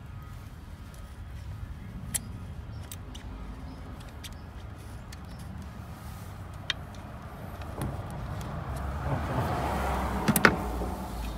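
Hand tools and metal parts being worked in a car's engine bay: a few scattered sharp clicks, then a scraping, rattling noise that builds near the end, with a quick cluster of sharp clanks, the loudest sound, about ten seconds in.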